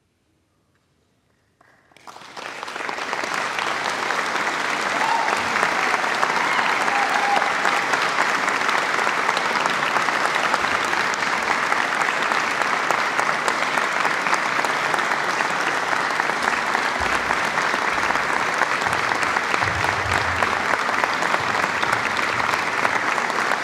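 Audience applauding: near silence at first, then clapping starts about two seconds in, swells within a couple of seconds and holds steady and dense.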